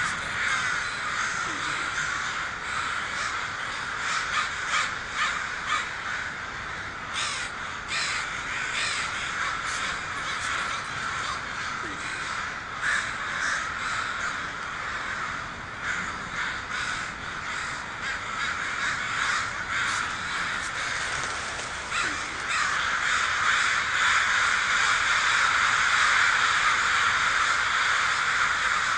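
A flock of crows cawing, many harsh calls overlapping one another. The calling thickens into a denser, louder din about three quarters of the way through.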